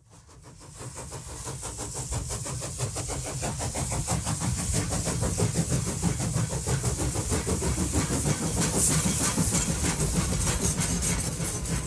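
Steam locomotive running, a fast rhythmic chugging over a low rumble with a steady hiss of steam, fading in over the first couple of seconds.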